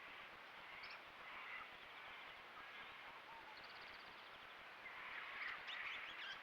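Faint, high, short bird calls over a steady background hiss, with a quick trill of repeated notes midway and a cluster of sharp calls about five seconds in.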